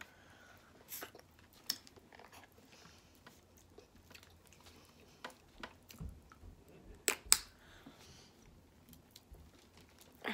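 Snow crab legs being eaten close to the microphone: shells cracking and meat being bitten and chewed, heard as scattered sharp clicks and cracks, the loudest two about seven seconds in.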